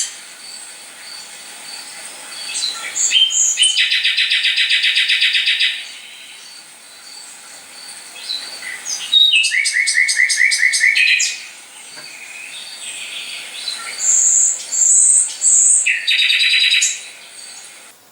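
Recorded songbird chorus played through a speaker: rapid trills of quick, even notes, and a run of three short high chirps in between.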